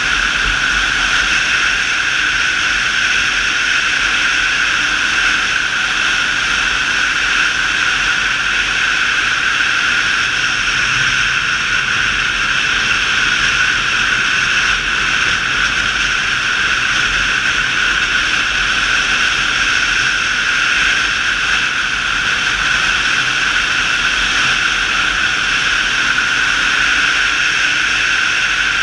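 Motorcycle cruising at a constant speed: a loud, unbroken rush of wind on the microphone over engine and road noise, with no changes in revs.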